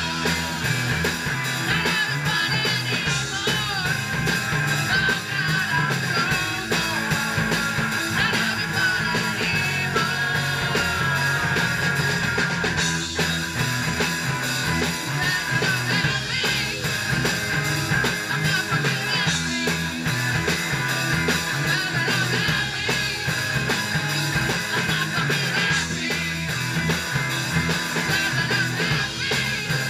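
Live rock band playing loud: electric guitars over a drum kit, continuous throughout.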